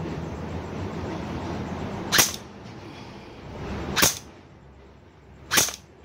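APS ASR121 electric blowback airsoft rifle dry-fired three single shots, each a loud, sharp clack of the gearbox cycling and the bolt blowing back, spaced just under two seconds apart.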